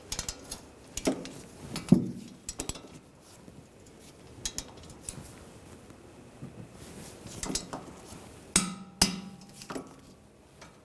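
Metal hand tools clicking and clinking on the rear brake caliper bracket bolts as they are torqued down, with two sharper metallic clacks that ring briefly near the end.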